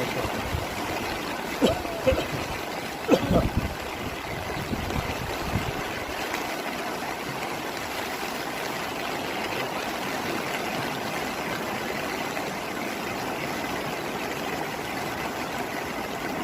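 Steady rush of a river in flood, water flowing hard. In the first few seconds there are a couple of faint voice-like calls and some low thumps.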